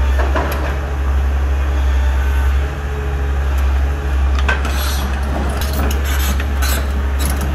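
Doosan DX140 crawler excavator running with a steady deep diesel drone. From about halfway in, its steel tracks clank and scrape as it drives forward.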